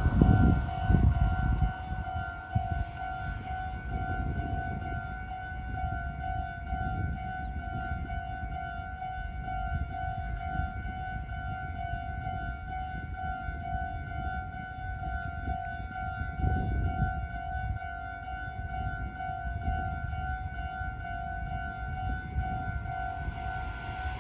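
Japanese railway level-crossing warning bell ringing its repeated electronic "kan-kan" tone without pause, the signal that a train is approaching or passing. A low rumble is loudest in the first couple of seconds and then fades.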